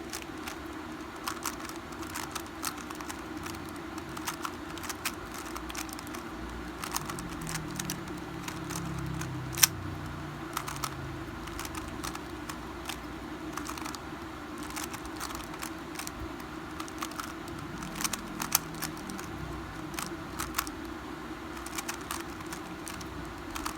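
A 3x3 Rubik's cube being turned over and over by hand: quick, irregular plastic clicks and clatter of the layers rotating, with one sharper click about ten seconds in.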